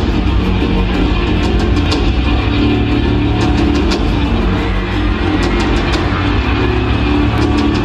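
Loud music with a steady, driving beat of sharp percussion hits.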